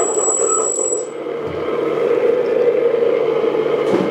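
A steady electronic engine-idle drone from the RC excavator's add-on sound system, with a thin high whine that stops about a second in. A few light clicks near the end as the bucket is handled onto the quick coupler.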